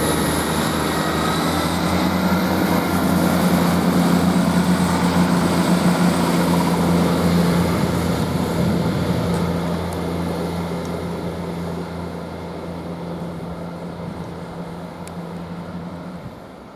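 Class 158 diesel multiple unit's engines droning under power as it pulls out of the station, a steady low note that swells over the first few seconds, then fades away as the train draws off.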